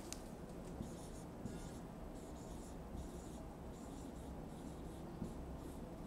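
Marker writing on a whiteboard: a run of short, high, scratchy strokes, one after another, as letters are written.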